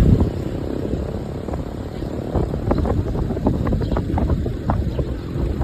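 Wind rushing and buffeting against the microphone at an open car window while driving, with low road rumble.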